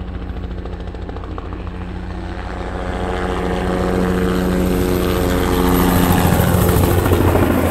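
Crop-spraying helicopter flying low, its rotor beat and engine growing steadily louder from about two and a half seconds in as it comes closer.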